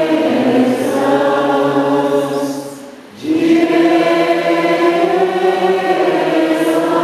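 A congregation singing together in long held notes, breaking off briefly about three seconds in before the voices come back in.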